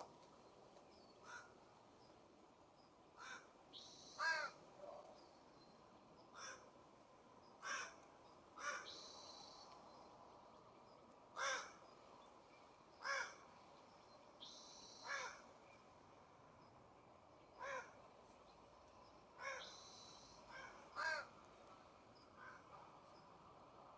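Harsh, crow-like calls of a corvid, about a dozen short rasping notes at uneven intervals, with a few short, high, buzzy calls of another small bird between them.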